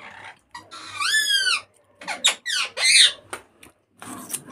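Several high-pitched squeaks: one arching squeal about a second in, then a quick run of short falling chirps between two and three seconds in.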